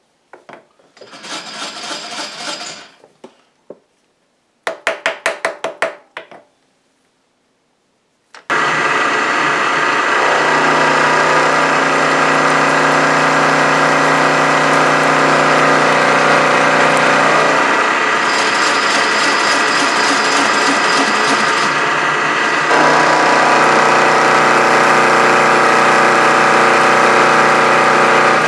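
Milling machine starting up about a third of the way in and running steadily as an end mill cuts a slot into a metal bar, the sound shifting twice as the cut goes on. Before it, a short scraping noise and a quick run of clicks.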